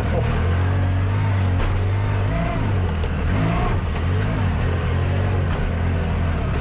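Side-by-side UTV engine running steadily at low revs while crawling over rocks, its deep note dipping and picking up slightly a few times.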